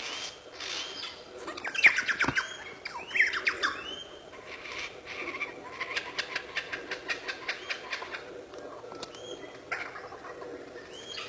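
Superb lyrebird giving its mimicry song: repeated short whistled notes, a loud burst of clicks and swooping calls about two seconds in, then a long run of rapid clicks in the middle.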